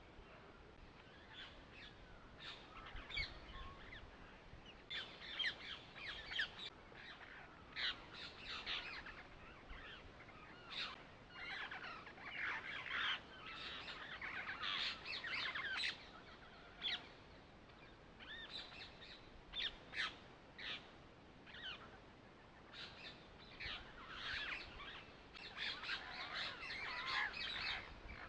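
Birds chirping and calling, many short high calls following one another and overlapping.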